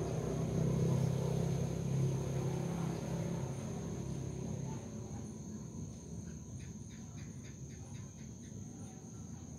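Insects keeping up a steady high-pitched trill, with a low motor hum that fades away about halfway through.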